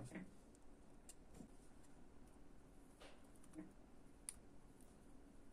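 Faint, scattered clicks and small ticks from needle-nose pliers gripping and tugging a spot-welded copper tab on an 18650 cell, a peel test of the weld's strength. The sharpest click comes right at the start and another about four seconds in, with low room tone between them.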